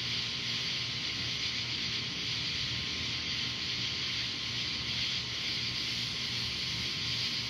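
Steady night-time outdoor ambience: an even high hiss over a low steady hum.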